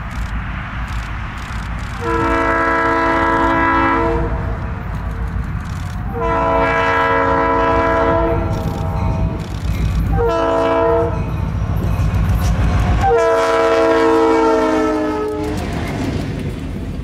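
Lead EMD diesel locomotive's multi-tone air horn sounding the grade-crossing signal: long, long, short, long. The last blast falls slightly in pitch as the engines pass. The diesels' low rumble runs underneath and drops away during that last blast.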